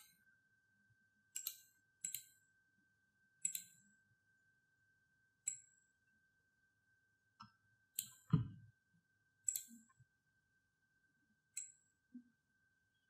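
Computer mouse clicking: about ten short, sharp clicks at irregular intervals, one of them with a dull low thump about two thirds through, over a faint steady high-pitched whine.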